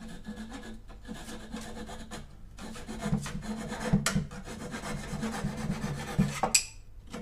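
Japanese pull saw flush-cutting protruding walnut filler pieces level with the pallet-wood frame, in repeated back-and-forth strokes. A short sharp sound comes near the end, where the strokes stop.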